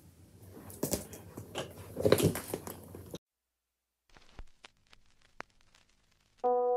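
Handling noise of things being moved about: crunchy rustling and knocks, with one louder patch about two seconds in. It cuts off abruptly to silence broken only by a few faint clicks, and soft piano music starts just before the end.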